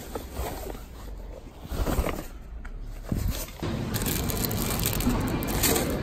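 Rustling and bumping of a folding camping chair in its nylon carry bag as it is handled on a car seat, with a few sharper knocks. From about four seconds in, a steadier wash of background noise takes over.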